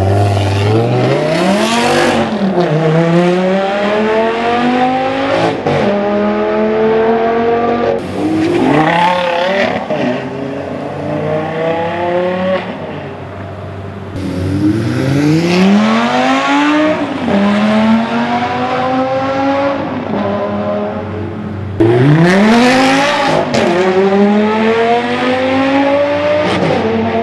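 Lamborghini sports car engines accelerating hard through the gears, the pitch climbing steadily and then dropping back at each upshift. Several separate runs follow one another with abrupt cuts between them.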